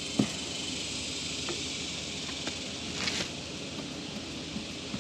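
Steady high-pitched hiss of outdoor background noise, with a sharp click just after the start, a few fainter ticks, and a short scrape-like rustle about three seconds in.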